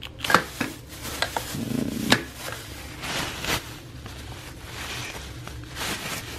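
A plastic bag crinkling and rustling as a hand rummages through it among packed items in a suitcase, with a few sharp clicks and knocks of things being handled, over a low steady hum.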